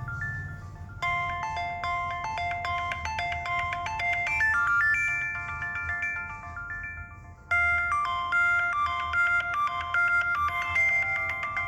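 Motorola Moto C ringtones playing one after another, each a short repeating electronic melody. One tune ends about a second in and a new one plays, then fades out. Another starts abruptly about two thirds of the way through.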